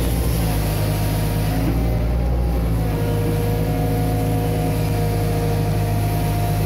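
Diesel engine of a Hitachi Zaxis 130 amphibious excavator running steadily, a deep hum with a higher steady whine over it that shifts slightly in pitch about three seconds in.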